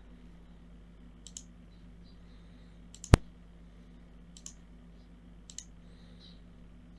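Computer mouse clicking now and then: short double clicks about a second apart, with one sharper, louder click about three seconds in, over a steady low electrical hum.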